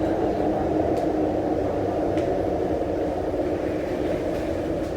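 Steady running noise heard inside a CRRC Changchun-built Tuen Ma Line metro train moving between stations: a continuous rumble and hum with a couple of faint clicks.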